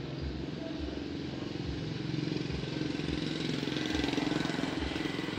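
Diesel engine of a Mercedes-Benz coach idling with a steady low rumble, getting a little louder in the middle.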